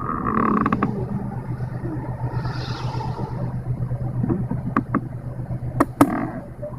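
Suzuki Palette MK21S's heater/air-conditioning air-mix actuator linkage making an abnormal noise: a burst of creaking about half a second in and sharp clicks near the end. The noise comes from the linkage having run dry of oil. A steady low hum of the engine idling runs underneath.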